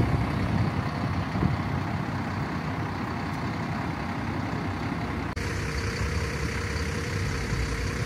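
Steady low rumble of vehicles running. The background changes abruptly about five seconds in, after which a steady hum holds.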